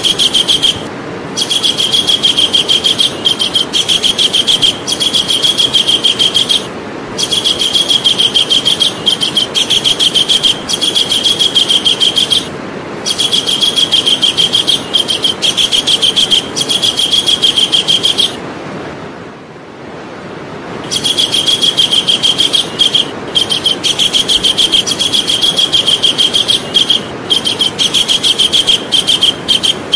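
Javan kingfisher calling: a fast, high rattling trill repeated in long bouts of several seconds, with short breaks between them and one longer lull about two-thirds of the way in.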